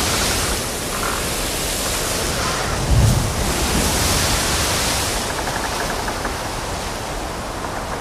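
Ship in a heavy sea: a steady rush of wind and breaking water against the hull, with a deep surging thump of a wave about three seconds in.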